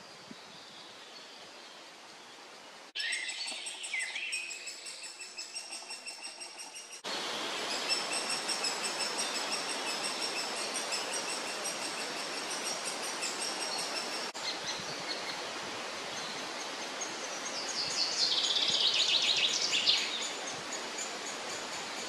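Young great spotted woodpecker begging from inside the nest hole: a rapid, continuous chatter of high calls. It starts abruptly about three seconds in and is loudest and densest a little before the end.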